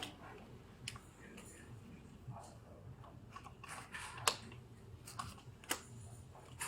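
Quiet room with scattered faint clicks and light taps at irregular intervals, typical of small objects being handled on a counter.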